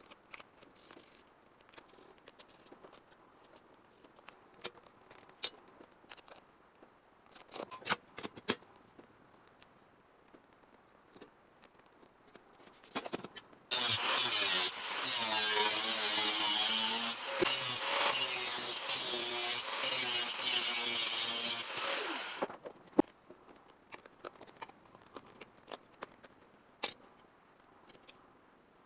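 A power cutting tool cutting rusted car body sheet metal: about eight seconds of loud, hissing cutting with a steady drone and a few brief pauses, beginning about halfway through. Before it come light clicks and knocks of handling.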